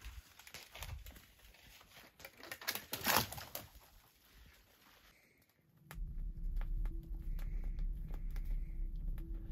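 Footsteps crunching and rustling through dry brush and twigs. About six seconds in, this gives way to a small twig fire crackling, with sharp pops over a steady low rumble.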